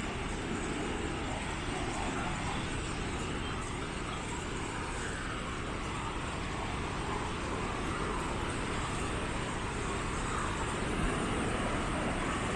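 Steady road traffic noise: an even wash of cars passing, rising and falling gently.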